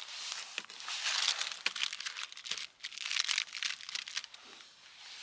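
Crinkly material rustling and crumpling in several bursts of about a second each, with a few small clicks, dying away near the end.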